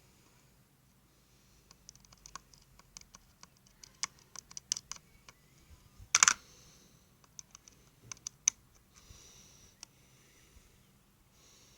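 Irregular small clicks and scrapes of a screwdriver and plastic speaker parts being handled while the driver screws of a small Bluetooth speaker are worked loose, with one louder clack about six seconds in.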